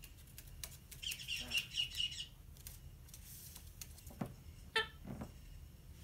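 Bird chirping: a quick run of high chirps about a second in, then a few soft knocks and one short call near the end.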